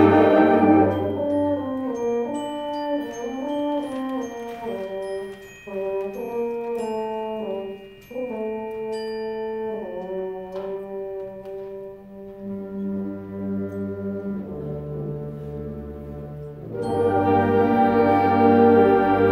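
School concert band of woodwinds and brass playing. The full band thins after a second or so into a quieter passage of a few melodic lines, then comes back in loud and full near the end.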